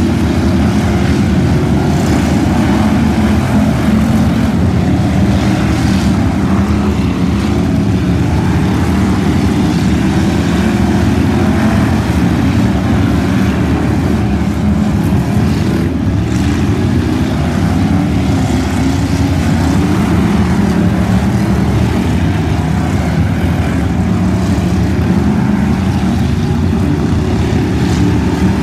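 Several stock car engines running at race speed together on a dirt track: a loud, steady, layered engine drone that never lets up.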